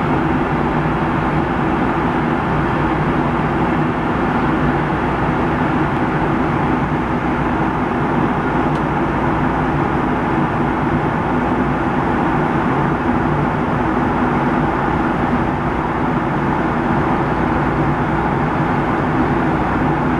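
Inside the cabin of a Boeing 757-200 in cruise at 37,000 feet: a steady rush of airflow and engine noise, with a few low steady hums beneath it.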